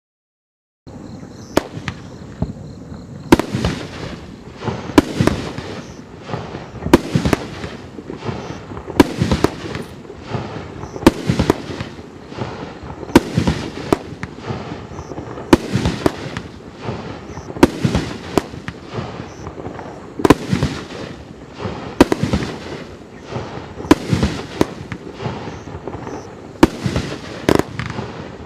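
Pyroland Wine Flight 16-shot consumer firework cake firing its shots one after another, starting about a second in, with a sharp pop roughly every two seconds.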